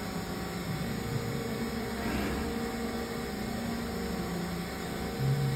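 Powered-on Dugard Eagle 850 vertical machining center humming steadily at a standstill, with several held tones over a noisy hum. A louder low hum comes in about five seconds in.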